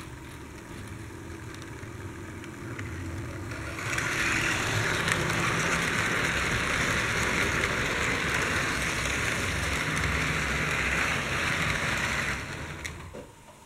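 Model ICE high-speed train running on metal track: a motor whir and wheel rumble that builds as it gets under way, stays loud as it runs past close by, and fades quickly near the end.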